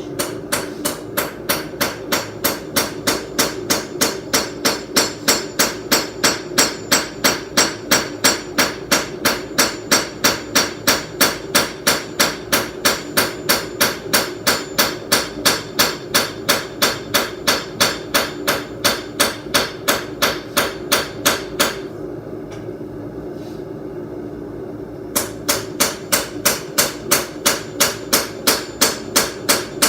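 The flat face of a 2.5-pound hammer striking a steel blade on an anvil in a steady run of about three blows a second, flattening it to keep its bevels flush. The blows pause for about three seconds near the end, then resume.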